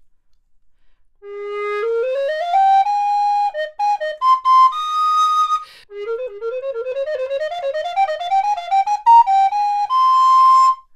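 Resin Ganassi alto recorder in G, at high Renaissance pitch (A=466), playing a lively passage: about a second in, a stepwise run climbs to a few held notes, then after a short break a second, faster rising run of quick notes ends on a long held high note.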